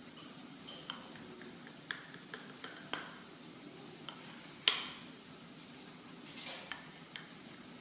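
A knife cutting syrup-soaked basbousa into portions in a baking tray: scattered light clicks and taps of the blade against the tray, one sharper knock about halfway through, and a brief scrape near the end.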